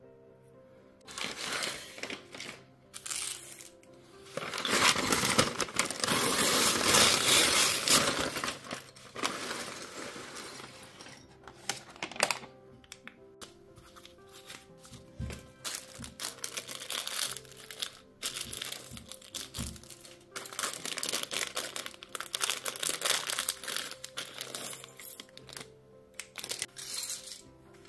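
A LEGO paper parts bag being crinkled and torn open, loudest between about 4 and 9 seconds in, followed by LEGO pieces clicking and rattling as they are poured and spread over the mat. Quiet background music plays under it.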